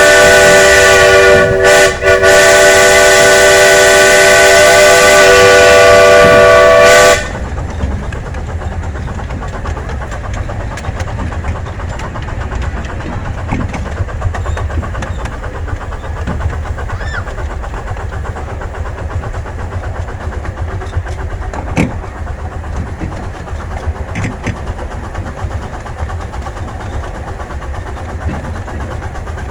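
Steam locomotive #7 'Oak's whistle blowing one long blast of several tones at once, with a brief dip about two seconds in, then cutting off suddenly about seven seconds in. After it, the train's steady low rumble as the cars roll along the track, with a few faint clicks.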